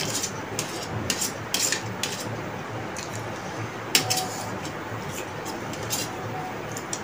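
Chopsticks clicking and scraping against plates and a small steel sauce bowl, with noodle slurping and chewing. A sharp clink about four seconds in leaves a brief ringing.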